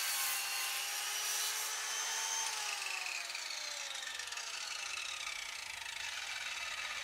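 Electric circular saw running, then winding down: its whine falls steadily in pitch from about two and a half seconds in as the motor and blade coast to a stop.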